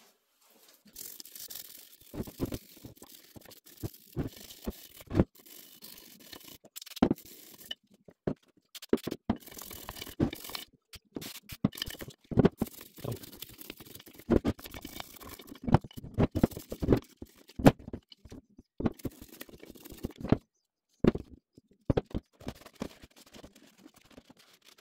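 Small nylon brush scrubbing glass-cleaner foam off a drill press head casting: quick, irregular scrubbing strokes broken by short pauses.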